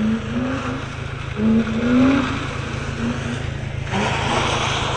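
Car engine revving in short repeated rising sweeps over a low rumble as the car is driven hard. About four seconds in, a broad hiss of tyres skidding on the pavement joins it.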